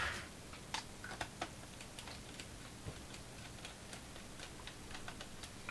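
Quiet, scattered small clicks and ticks of a screwdriver turning the little screws that hold the cooling heatsink down on an Asus laptop's motherboard.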